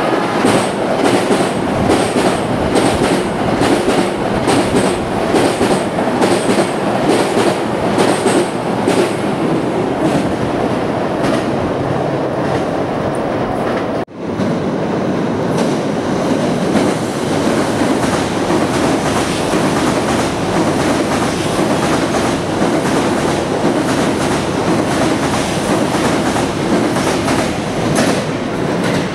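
JR East E657-series electric limited-express trains running through on the elevated line: a loud, continuous rolling of wheels on rail with a fast, even clickety-clack over the rail joints. The sound breaks off for an instant about halfway through and picks up again.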